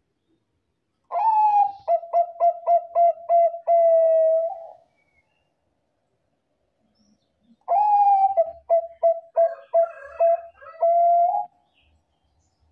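Zebra dove (Thai-bred 'Bangkok' perkutut) singing two loud song phrases. Each opens with a higher coo, runs into a quick series of short stuttering coos and ends on a longer held coo.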